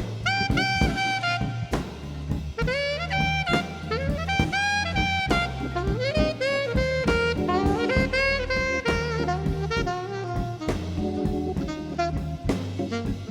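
Background jazz music: a saxophone melody with bending notes over bass and drum kit.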